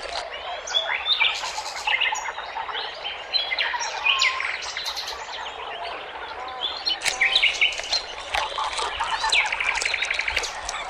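Several songbirds chirping and singing over one another in quick, varied phrases of whistles and short notes, with a rapid trill near the end.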